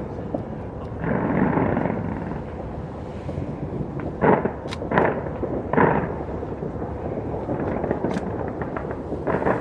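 Fireworks display going off: a continuous rumble of bursts with several sharp, loud bangs standing out from it.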